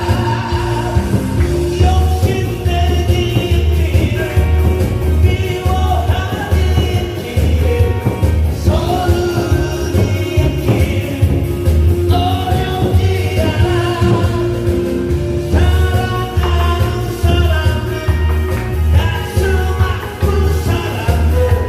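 A singer singing into a microphone over an amplified backing track, with a steady bass beat about twice a second.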